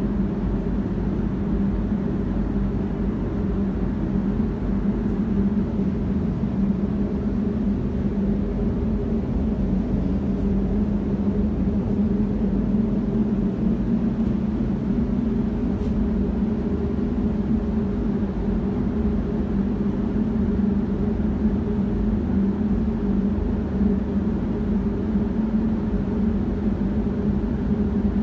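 Paint spray booth ventilation running: a steady low hum of moving air and fans.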